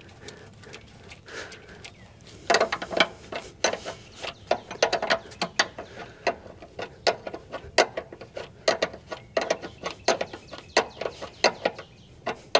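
Wrench working a thin brass air-line fitting on a semi truck's suspension air bag, snugging it down: quick irregular runs of sharp metal clicks that begin about two and a half seconds in.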